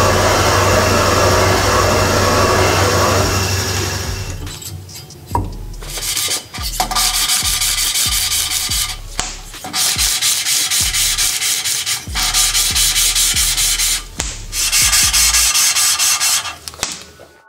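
Valve seats on a Toyota G16E cylinder head being cut: a steady machine noise with a low hum for the first few seconds, then a rasping cutting noise in repeated bursts of two to three seconds with short pauses between them.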